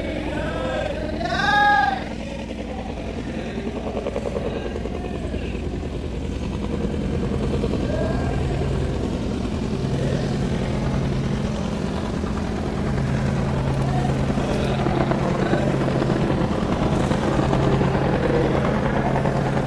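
An engine running steadily at idle, a low hum that grows firmer after the first few seconds. One loud, wavering pitched call stands out about a second and a half in.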